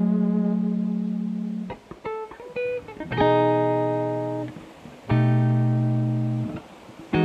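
Background music on guitar: plucked chords ringing out and fading, with a short run of single plucked notes about two seconds in and new chords struck about three and five seconds in.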